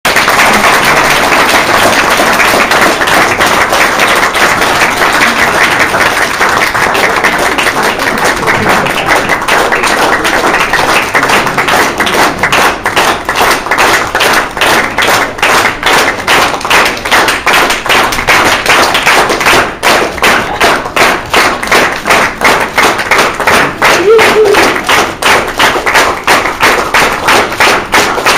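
Audience applauding, the clapping turning into steady rhythmic clapping in unison, about three claps a second, from around twelve seconds in.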